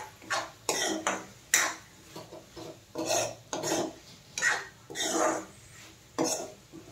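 A metal spoon stirring cooked pumpkin pieces in a steel kadhai, scraping against the pan in about ten short strokes.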